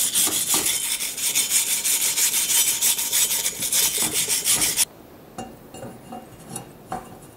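Hand wire brush scrubbing the turbo flange face of a cast-iron exhaust manifold in quick, even strokes. It stops abruptly about five seconds in, followed by a few light metal clinks as the turbocharger is set against the flange studs.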